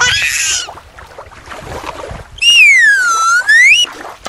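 Whistle-like cartoon sound effect: a clear tone glides down and back up over about a second and a half, starting about two and a half seconds in. At the very start there is a short warbling rising sound.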